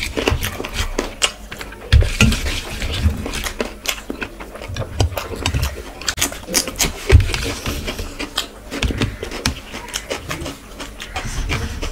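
Close-miked eating sounds: wet mouth smacks and chewing, with fingers rubbing and scraping across a steel plate, in many irregular sharp clicks and soft thumps.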